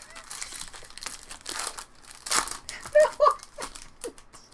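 Foil trading-card pack wrappers crinkling as packs are handled and opened by hand, in irregular rustling bursts. A short vocal sound cuts in about three seconds in.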